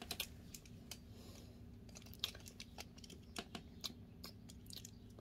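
About a dozen faint, irregular clicks and taps of plastic Beyblade tops and parts being handled, over a faint steady low hum.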